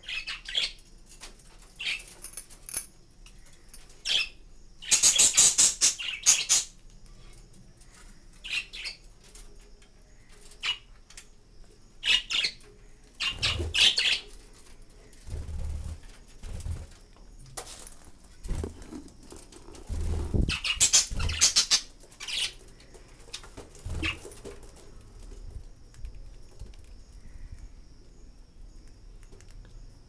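Budgerigars flapping their wings and chirping in scattered short bursts, loudest about five seconds in and again around twenty seconds, with a few dull thumps in between.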